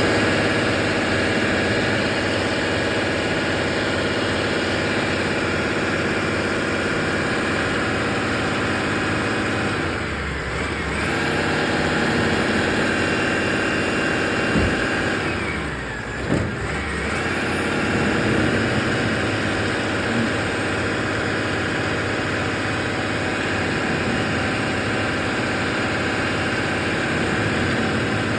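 A motor vehicle's engine running steadily, with a brief dip in the sound twice, about ten and sixteen seconds in.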